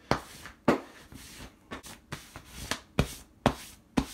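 A hand rubbing and slapping at a thin layer of water in a metal baking pan, a quick wet stroke about two or three times a second.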